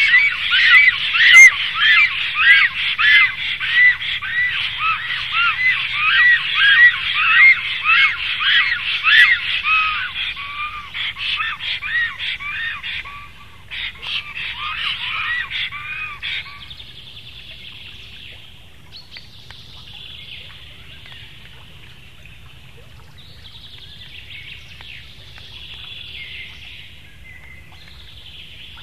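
Black storks calling at the nest during their greeting display: a rapid series of rising-and-falling notes, about three a second, that fades out about halfway through. Fainter bird chirping follows.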